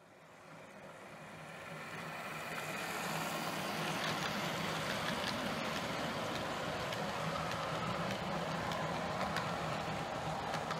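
Model diesel locomotive in the style of a Class 37 hauling a freight train along the layout, its running noise swelling from nothing over the first few seconds as it approaches, then holding steady with a low drone and a few light clicks from the wagons' wheels on the track.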